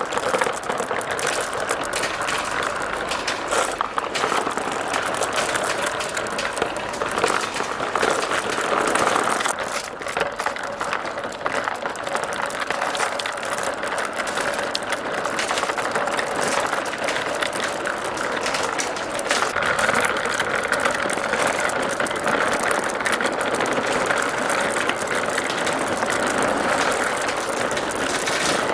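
Many marbles rolling and clattering down plastic slope tracks together, a steady rattling rumble thick with small clicks.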